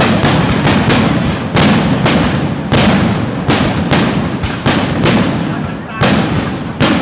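Fireworks display: a rapid barrage of aerial shells bursting overhead, loud sharp bangs about three a second, each trailing off briefly before the next.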